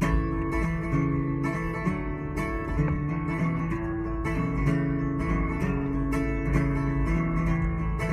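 Acoustic guitar strummed in a steady rhythm, about two strokes a second, starting cleanly with the song's intro. Played inside a car, with a low road rumble underneath.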